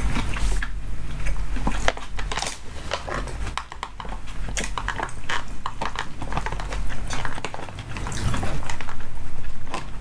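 Close-up eating sounds: chewing and a utensil clicking and scraping against the container of tuna bibimbap, in irregular short bursts.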